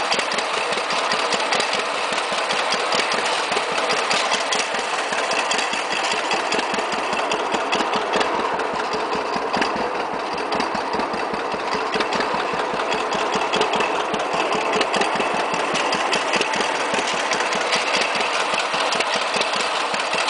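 John Deere 60 tractor's two-cylinder engine idling steadily, a fast, even run of firing pulses with no change in speed.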